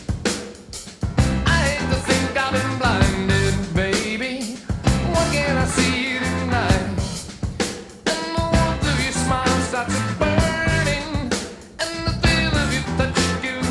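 Rock music with drums, bass and guitar, and a singing voice over it.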